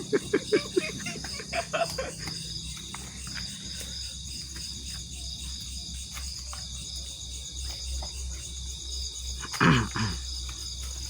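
Crickets chirring steadily in a pulsing high band, with a few sharp clicks and crunches in the first two seconds. About ten seconds in comes one loud, short, falling cry, taken for a goat bleating.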